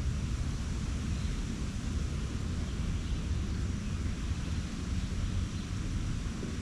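Steady low outdoor rumble with an even background hiss, with no distinct events.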